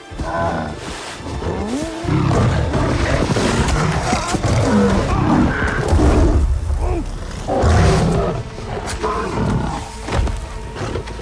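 Lion growling and roaring again and again, loud, over a heavy low rumble.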